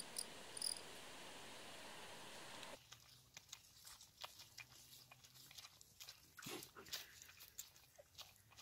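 Faint steady hiss of outdoor background for the first few seconds, then faint scattered clicks and smacks of baby vervet monkeys sucking at milk bottles pushed through a chain-link fence.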